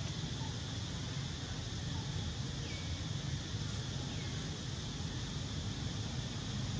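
Steady outdoor background noise: a low rumble of wind on the microphone under a steady high hiss, with two faint, short falling chirps about two and a half and four seconds in.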